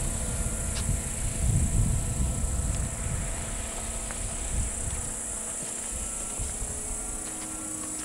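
Wind buffeting the microphone, heaviest in the first half, over a steady high chirring of crickets. A faint thin whine from the motor of a radio-controlled model Cessna 150 flying overhead sits underneath.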